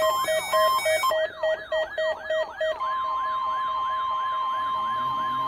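Several NOAA weather alert radios sounding their alarms at once for a weekly test: a fast whooping sweep repeating about four times a second over rapid pulsed beeps. The beeps stop about three seconds in and a single steady warning alarm tone takes over.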